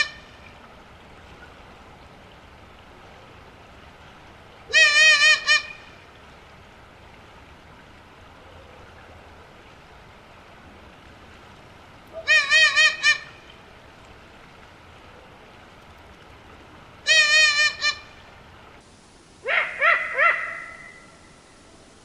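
Eurasian eagle owl calling: short wavering calls of about a second, each of three or four quick pulses, repeated every five to seven seconds. Near the end comes a differently recorded, rougher call.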